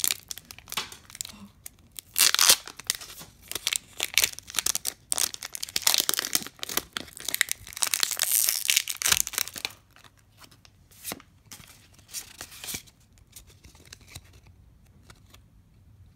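A foil Pokémon booster pack wrapper crinkling and tearing open, with dense crackling for about the first ten seconds. Then quieter, sparser rustling as the cards are handled.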